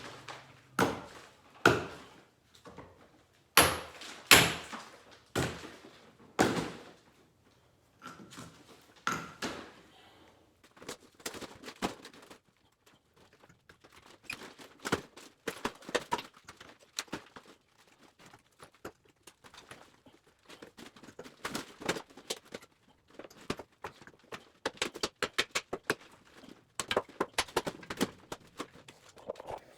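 Demolition knocks and thuds as material is broken off an old interior brick wall: a few heavy, irregular strikes early on, then a long run of quicker, lighter knocks.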